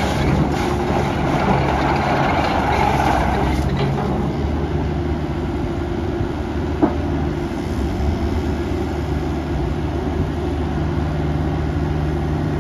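Hanix midi excavator's diesel engine running steadily, with extra hiss and rush in the first few seconds that falls away just under four seconds in. A single sharp click comes about halfway through.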